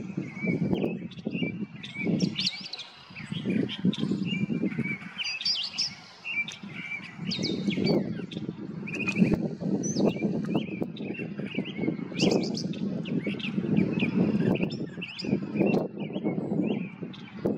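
Brown thrasher singing a long run of short, varied phrases of quick chirps and whistled notes, with brief gaps between phrases. A steady low rumbling noise runs underneath.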